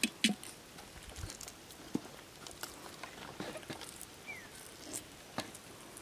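Small, irregular crackling clicks of boiled small bird eggs' shells being cracked and peeled by hand.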